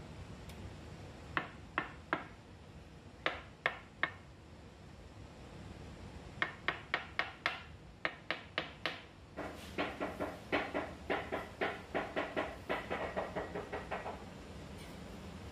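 Ceramic tile being tapped down into wet mortar with the butt of a knife handle: sharp knocks in small groups, then a run of about four taps a second, then a quicker run of taps that ring, stopping shortly before the end.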